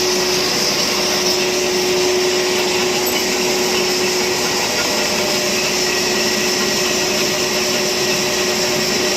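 Lathe machine running steadily, a constant whir with a hiss over it.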